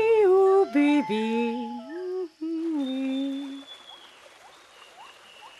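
Marsupilami's wordless cartoon voice humming and warbling, with long held notes and pitch slides, stopping about two-thirds of the way in. After that comes faint jungle ambience: a thin steady high tone and a few short rising chirps.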